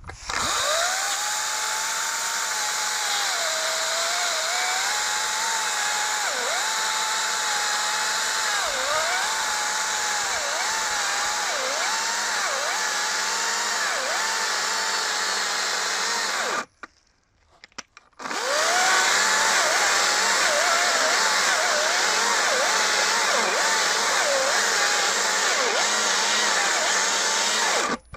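Hychika CS40B 36V brushless cordless chainsaw running in eco mode and cutting wood. The motor's whine drops in pitch again and again as the chain bites into the cut. About two-thirds of the way through it stops for a second and a half, then starts again and cuts on.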